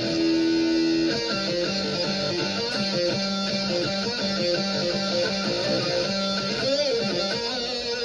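Electric guitar played through a high-gain amp model voiced like a big modern solid-state amp, Randall-style: a note held for about a second, then a run of single notes, with a string bend near the end.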